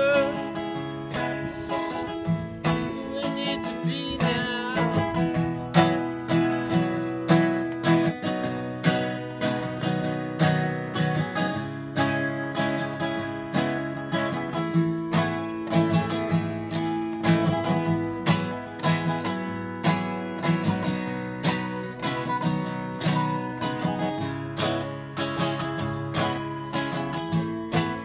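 Acoustic guitar strummed in a steady rhythm, an instrumental break with no singing.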